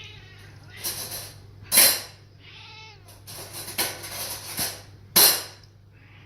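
Distressed house cat meowing and yowling in complaint at household noise. Several loud, harsh bursts come between the calls, the loudest about two seconds in and again about five seconds in.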